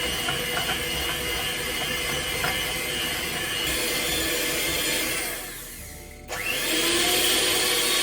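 Electric mixer running steadily, beating butter and sugar for a cake batter. About five and a half seconds in it dies away, then starts again suddenly a little louder just after six seconds.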